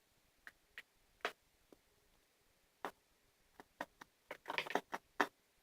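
A string of short, sharp plastic clicks and taps, irregular and bunched closer together near the end, from a new lotion bottle being worked to get the cream out while it is not yet dispensing.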